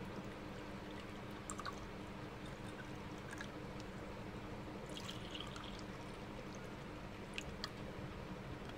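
Water poured from a glass bottle into a drinking glass, over a steady low hum, with a few light clicks.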